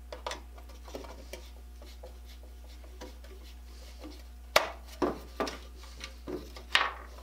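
Small metallic clicks and clinks of a screwdriver working the saw bolts and saw nuts out of a handsaw's wooden handle: a few light clicks near the start, then a run of about six sharper clicks in the second half, over a steady low hum.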